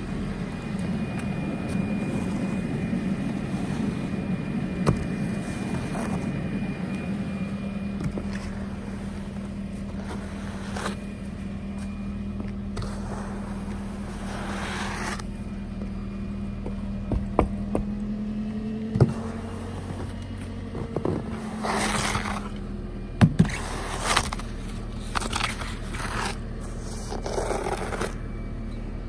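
Foam snow broom pushing and brushing snow off a car, in several swishing, scraping strokes with a few sharp knocks, mostly in the second half. A steady low hum runs underneath throughout.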